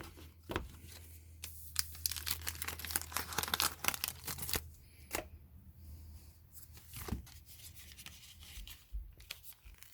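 Pokémon card pack packaging torn open by hand: plastic and foil crinkling and ripping in a string of sharp crackles.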